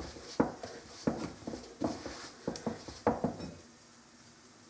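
Bread dough kneaded by hand in a glass bowl: a run of irregular soft thumps and knocks, two or three a second, that stops about three and a half seconds in.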